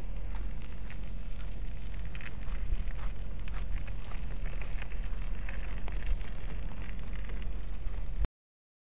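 Steady low wind rumble on the microphone, with scattered light crackling and crunching of gravel as a loaded canoe on a wheeled cart and a person on foot pass over a gravel road. The sound cuts off abruptly near the end.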